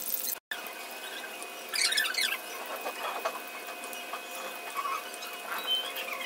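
Soya chaap sticks deep-frying in hot oil in a kadhai: a steady sizzle with a few louder spells of crackling and spattering.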